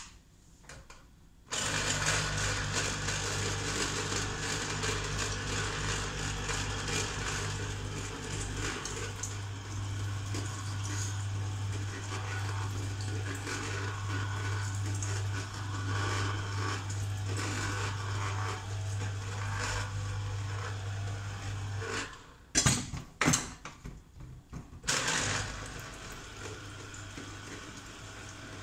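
Electric citrus juicer running, its motor humming steadily while an orange half is pressed onto the spinning reamer. It starts about a second and a half in and stops about 22 seconds in; a few knocks follow, then it runs again more quietly for the last few seconds.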